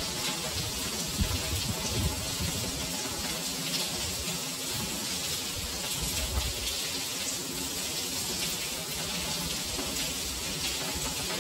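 Heavy rain falling steadily on a stone-paved street and building walls: a dense, even hiss with the patter of countless drops.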